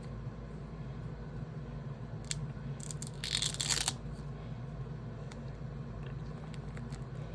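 Paper crinkling and crunching for about a second in the middle, with a few light taps before and after, over a steady low background hum.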